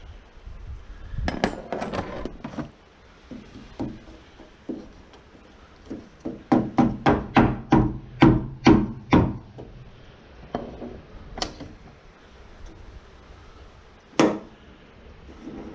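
Tool knocking at the retaining clip on a hood gas strut's end fitting to free it: scattered sharp knocks, then a fast run of about ten knocks at three to four a second, then two more single strikes.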